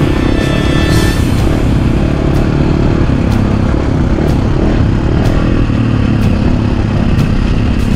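Enduro motorcycle engine running under way, its pitch shifting as the throttle changes, with repeated short knocks and rattles.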